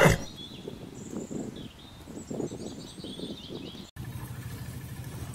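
Faint bird chirps over a low, uneven rustle. After a cut about four seconds in, a steady low motor hum with a fast pulse begins.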